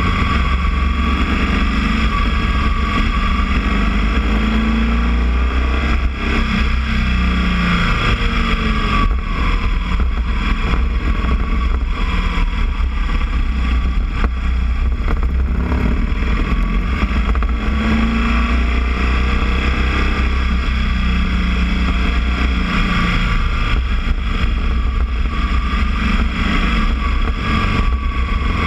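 Boxer motorcycle engine running on the move, its pitch rising and falling with the throttle, over a steady low rush of wind.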